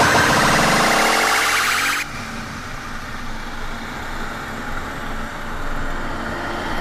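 Motorcycle ride: a loud rising whine cuts off suddenly about two seconds in. Quieter steady wind and engine noise from the Yamaha motorcycle riding along follow.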